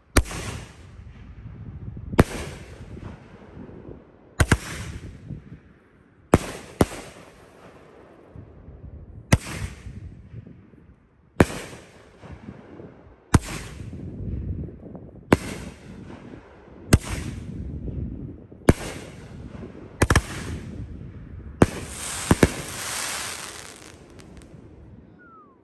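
A 500-gram, 10-shot consumer firework cake (Boom Wow 'Freedom First') firing: a string of sharp launch and burst bangs about every two seconds, each trailing off. Near the end comes a dense crackling spell from the crackling glitter finale.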